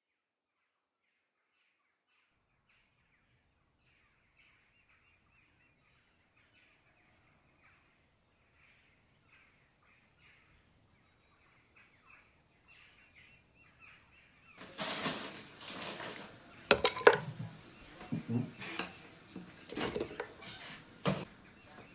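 Chopped onion pieces tipped from a glass bowl onto raw mutton in a cooking pot: a sudden run of irregular knocks and clatters starting about two-thirds of the way in, after a nearly silent start with only faint short sounds.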